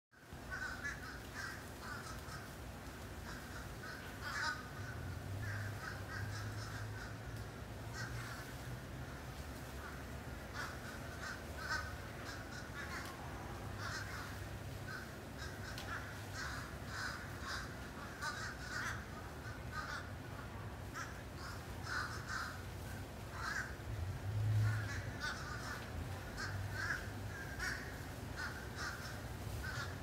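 A large flock of birds in a tree calling without pause, many short calls overlapping several times a second, over a low steady rumble.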